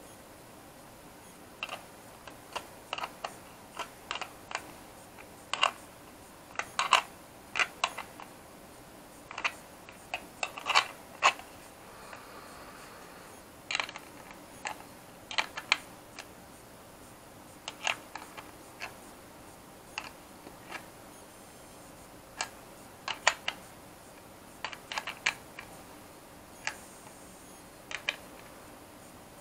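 Small metal spanner clicking and tapping against a brass antenna connector nut and the plastic shell of a drone remote controller as the nut is tightened: irregular sharp clicks, some in quick clusters, with short pauses between.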